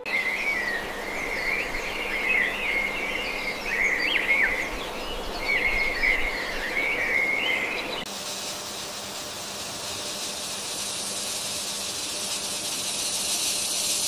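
Nature sound effects: high twittering chirps in short phrases, then, after a sudden change just past halfway, a steady high insect hiss.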